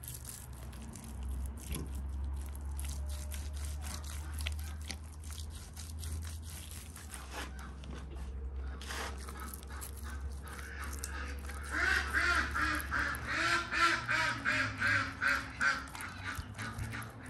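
Gloved hands smearing and patting spice paste onto a whole grass carp, small wet clicks over a low steady hum. About twelve seconds in, waterfowl break into a run of rapid repeated calls, several a second, for about four seconds.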